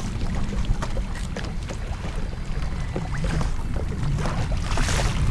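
Steady low rumble of wind and open water around a small fishing boat, with water lapping at the hull and scattered small clicks. A brief rushing hiss comes near the end.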